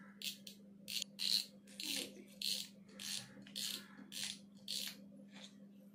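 Front drag knob of a Pioneer Rexo RX-4000 spinning reel being unscrewed to take the spool off, clicking in short rasping bursts about three times a second.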